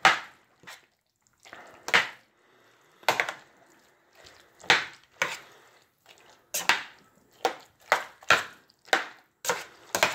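A spoon stirring a thick rice, bean and sausage mix in a stainless steel pot, knocking and scraping against the pot's side and bottom in short sharp strokes. The strokes come about once a second at first and nearly twice a second in the second half.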